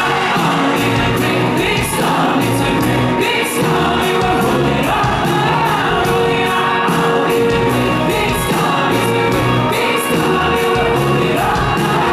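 Live rock band playing loudly, with drums keeping a steady beat, electric guitar and several voices singing.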